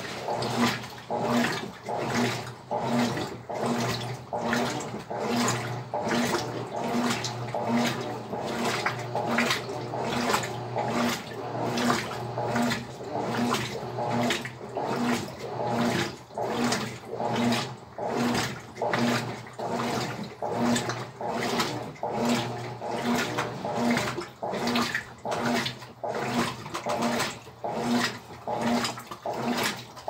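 Colormaq LCA11 Black top-loading washing machine agitating a load of towels and cloths in water: its agitator swishes back and forth in a steady rhythm, a little more than one stroke a second, over a constant motor hum.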